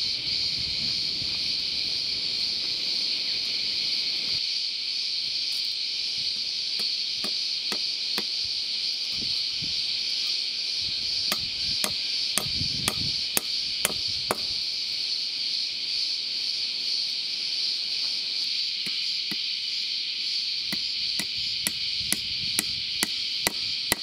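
Claw hammer striking nails through a perforated metal strap into a round timber beam and post, in three runs of quick blows about two a second. A steady high drone of insects runs underneath throughout.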